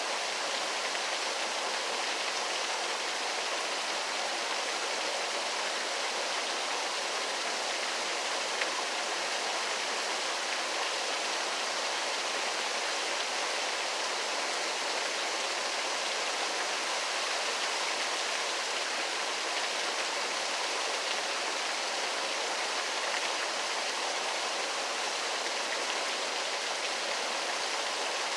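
Waterfall: falling water rushing and splashing in a steady, unbroken hiss.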